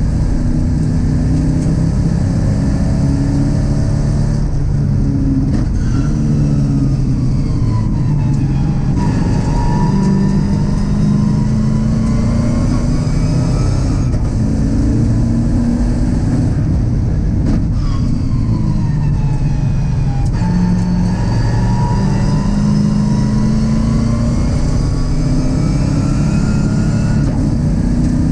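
A GM LS V8 engine in a Mazda MX-5 race car, heard from inside the cockpit, running hard at racing speed under wind and road noise. Its note drops twice as the car slows for corners, and each time it climbs steadily again as the car accelerates out.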